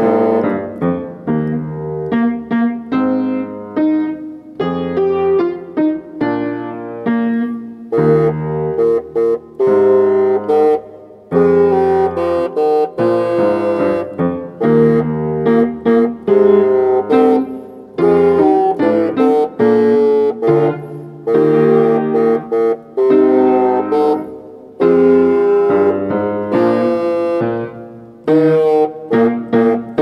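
Bassoon playing a melody in phrases of a few seconds with short breaks between them, over a piano accompaniment.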